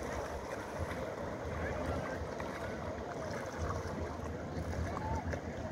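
Wind gusting on the microphone over water lapping and sloshing around a small boat, a steady outdoor noise with an uneven low rumble.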